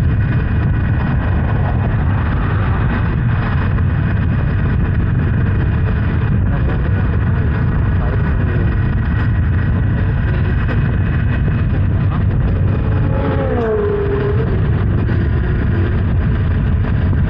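Honda Hornet 900 motorcycle being ridden: steady engine and road noise with wind rushing over the microphone.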